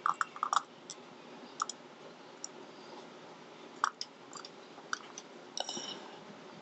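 Scattered small sharp clicks and taps, as the small metal parts of a disassembled pin tumbler lock are handled, with a quick cluster at the start and a brief rattle near the end.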